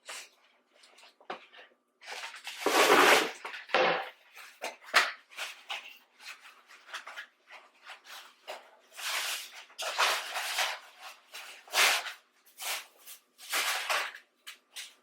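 Irregular rustling, clicking and knocking of packaging and plastic containers being handled, with a louder rustle about two to four seconds in.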